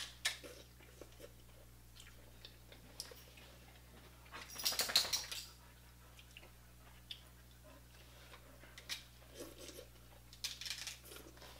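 Close-up eating sounds of a seafood boil: chewing and sucking on crab and shrimp, with scattered small clicks of shells and fingers. One louder, noisy burst comes about five seconds in, and a few smaller ones near the end.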